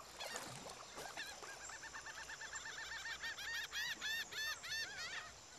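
A bird calling in a rapid, even series of short, high chirps lasting about four seconds, growing louder toward the end.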